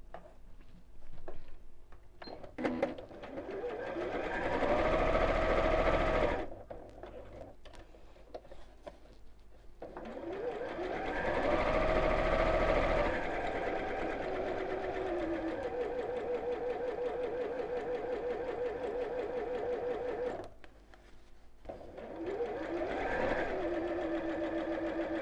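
Electric domestic sewing machine stitching a seam on a short stitch in three runs, starting and stopping between them as the fabric is turned around a curve.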